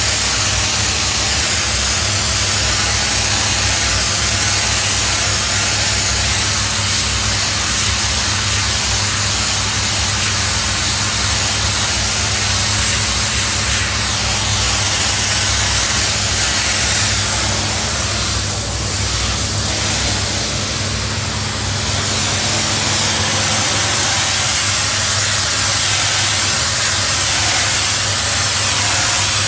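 Doff superheated steam cleaner's lance jetting steam onto patio slabs: a loud, steady hiss, with a steady low hum underneath.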